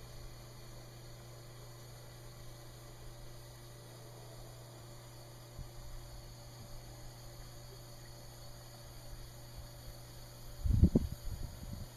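A steady low hum. About eleven seconds in comes a short burst of low, rumbling knocks.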